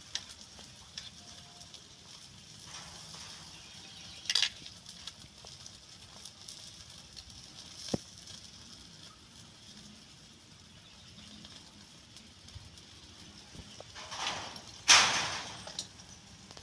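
Bildat shells clattering in a stainless steel basin as a hand picks through them, the loudest sound, about fifteen seconds in and fading over a second. Before it, only a few faint scattered clicks, like a spoon tapping shells on the wire grill.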